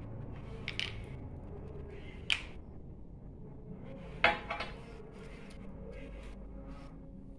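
Painting supplies being handled: a few light clinks and taps of hard objects, the loudest about four seconds in, over a steady low hum.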